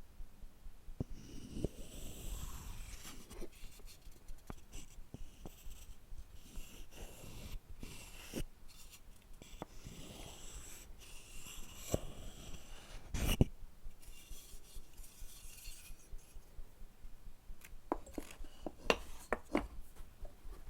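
Close-miked scraping and rubbing on wooden objects, broken by scattered light taps and clicks. There is one sharper knock about 13 seconds in and a quick run of clicks near the end.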